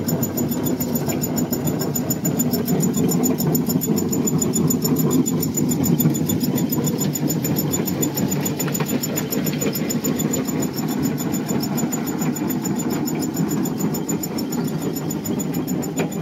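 An engine running steadily at idle, a continuous low rumble.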